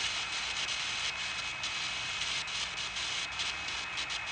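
Ghost-detector app on a smartphone playing hissing static that flickers in quick, irregular pulses over a faint steady high tone.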